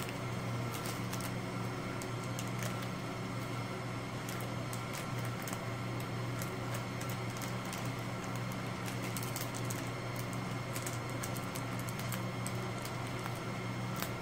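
Light, scattered clicks and taps of a utensil stirring slime in a plastic tub, over a steady low hum.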